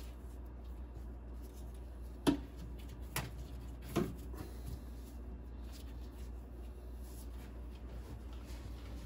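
Quiet handling noise of gloved hands working small electrical wires, with three small sharp taps about two, three and four seconds in, the first the loudest, over a steady low hum.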